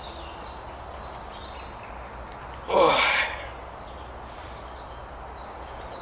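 One short cry that falls in pitch, a little under halfway through, over a steady low hum and faint outdoor background.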